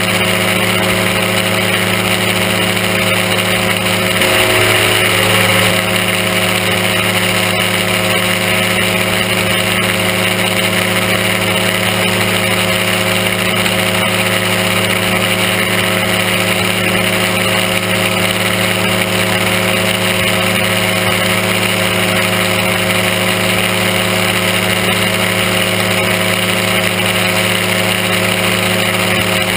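Aerochute powered-parachute trike's engine and pusher propeller running steadily in flight, heard on board, briefly a little louder about four seconds in.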